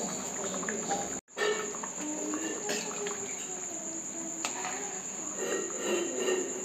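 Steady high-pitched chirring of crickets, with a few light clicks of a spoon stirring in a steel pan. The sound drops out for a moment about a second in.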